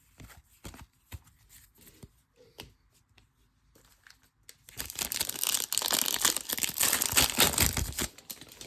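Faint light clicks of trading cards being handled. Then, about halfway through, a few seconds of loud crinkling and tearing as baseball card packaging is ripped open.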